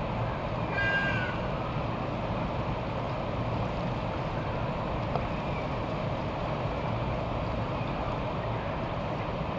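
A short mewing call, like a cat's meow, about a second in, over steady even background noise.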